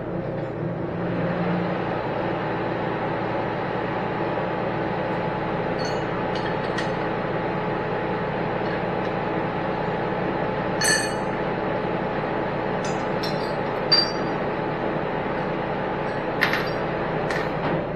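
A steady mechanical hum, with several sharp metal clinks as steel clamps and an exhaust manifold are set down and shifted on the iron table of a horizontal boring mill.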